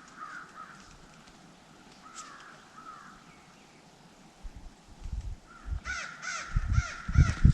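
Crows cawing, a few faint caws at first and then a quick series of harsh caws near the end. Loud low rumbles and thumps on the microphone build up over the last three seconds.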